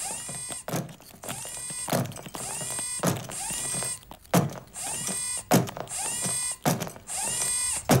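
Leg-joint motors of the TARRY II stick-insect walking robot, moving in steps: short electric whirs, each ending in a sharp mechanical click, about once a second.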